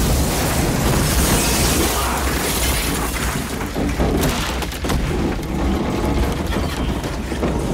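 Film soundtrack explosion: a loud, sustained low rumbling roar with repeated crashing impacts, like a blast and falling debris.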